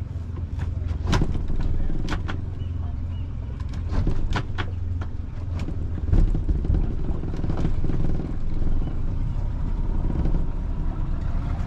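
Twin outboard engines running at low throttle, a steady low rumble, while the boat is powered up onto its trailer. Scattered sharp knocks and taps sound over it.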